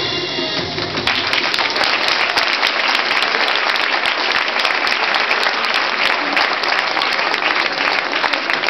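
Dance music ends about a second in, and an audience breaks into loud, sustained applause, many hands clapping at once.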